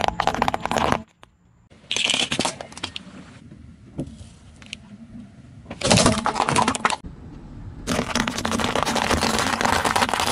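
Car tyre rolling slowly over piles of small brittle objects and crushing them: crackling and crunching in several separate bursts, the last one starting about 8 seconds in and carrying on.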